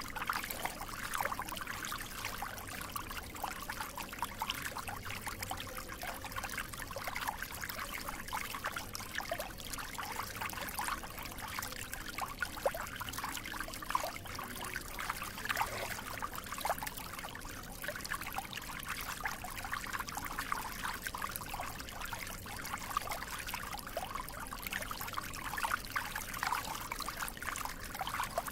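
Water flowing and trickling steadily, a continuous babble of many small splashes and gurgles.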